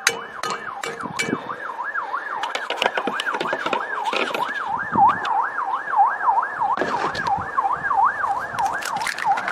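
An emergency vehicle siren in a fast yelp, its pitch sweeping up and down about three times a second without a break.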